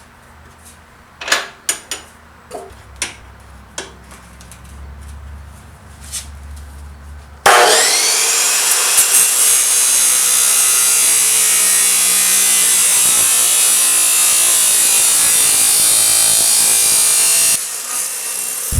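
A few light metal knocks, then about seven seconds in a power tool spins up suddenly and grinds or cuts steel, loud and steady for about ten seconds, stopping abruptly near the end.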